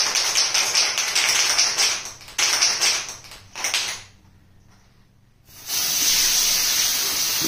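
Aerosol party snow-spray cans: a clattering hiss with rapid clicks during the first few seconds, a short lull, then a steady hiss of spray starting about six seconds in as foam is sprayed into a face.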